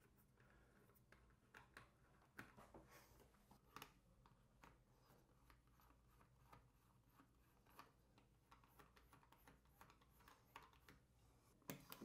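Near silence with faint, scattered small clicks and taps as hands fit the plastic and metal trim pieces onto a Grohe SmartControl shower valve.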